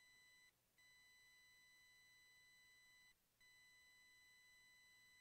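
Near silence apart from a faint, steady, high-pitched electronic beep tone that drops out briefly twice, about every two and a half seconds.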